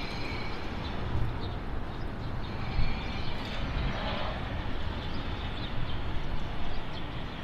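City street ambience: a steady low hum of traffic.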